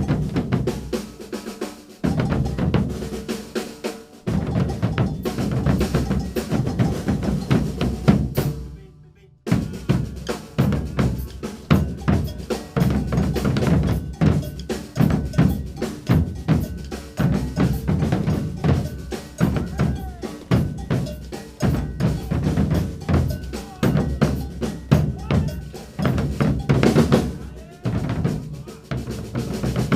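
Percussion group playing a coco virado rhythm on drums, with dense, steady strokes. The playing stops for about a second near the middle, then comes back in.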